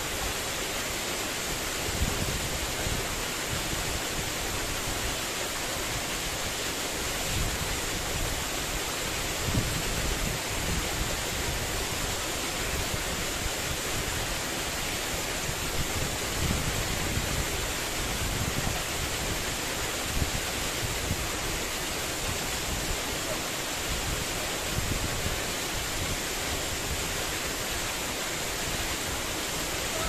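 Tall waterfall pouring down a rock face into a pool, a steady, unbroken rush of falling water heard close to its foot.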